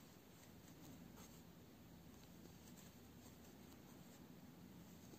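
Near silence with the faint scratchy rustle of a crochet hook drawing yarn through stitches, with a few light ticks.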